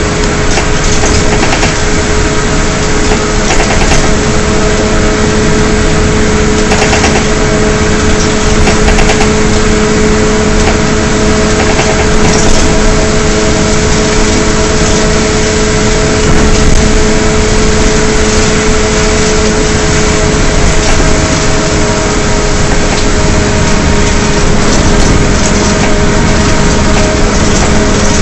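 2009 Gillig Advantage transit bus, with a Cummins ISL diesel and Allison B400R transmission, cruising, heard from inside the bus. A steady drivetrain howl holds one pitch over the engine drone and road noise, with occasional knocks from the body.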